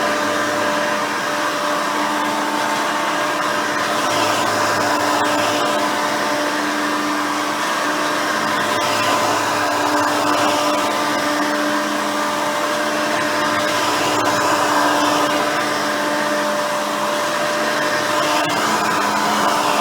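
Hoover Elite 350 upright vacuum, with a 5-amp motor, 7-blade fan and soft nylon-bristle brush roll, running steadily while cleaning. A lower hum swells and fades every few seconds.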